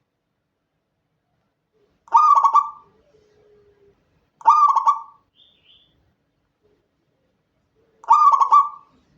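Zebra dove (perkutut) cooing: three short phrases, each a quick stuttering run of rolling coos, spaced a few seconds apart.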